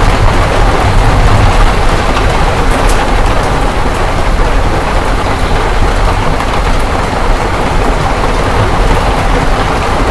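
Heavy rain pouring down, a loud, steady hiss with a deep rumble underneath and no separate hailstone hits.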